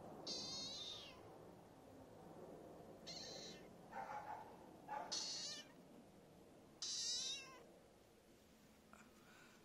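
A series of five short, high-pitched animal calls with a wavering pitch, each under a second long, spaced a second or two apart.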